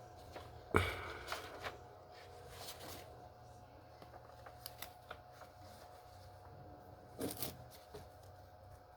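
Comic books in plastic bags and boards being handled: a sharp knock near the start, then light plastic rustles and clicks, with a short flurry of rustling near the end.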